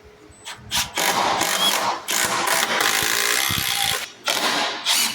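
Power drill driving screws to fasten the new door frame in its opening, running in three long spells with short pauses between them.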